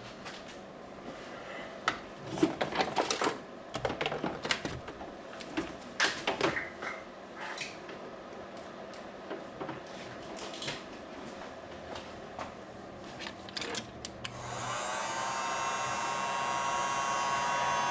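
Scattered clicks and rustles of wires being handled, then about fourteen seconds in an electric heat gun switches on and runs steadily with a fan whine, shrinking heat-shrink tubing over a wire splice.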